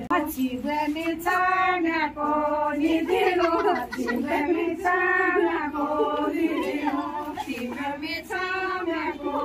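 A group of women singing a song together in unison, in phrases with drawn-out held notes.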